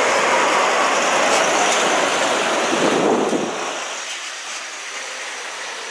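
Vintage Bedford coach driving past close by, engine and tyre noise loud at first, then falling off sharply about three and a half seconds in as it moves away.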